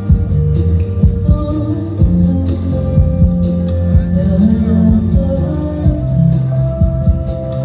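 A live rock band playing through the venue's PA, heard from the audience: drum hits over bass, electric guitars and keyboards, with singing.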